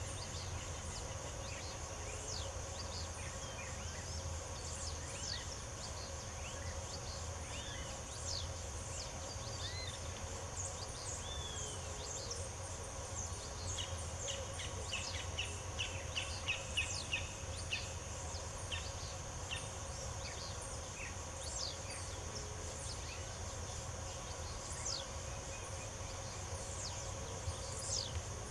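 Wild birds chirping and calling with short, scattered notes and a quick run of repeated chirps around the middle, over a steady high insect buzz and a low background rumble.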